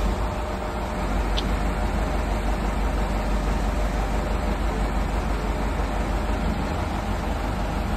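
Truck-mounted crane's engine running steadily while the crane lifts an excavator cab, a constant low hum with no break.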